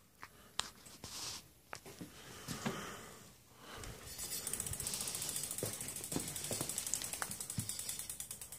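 Bicycle rear hub ratchet clicking: a fast, even ticking of the pawls, as from a rear wheel freewheeling on a repair stand. It starts about four seconds in, after a few scattered clicks and knocks.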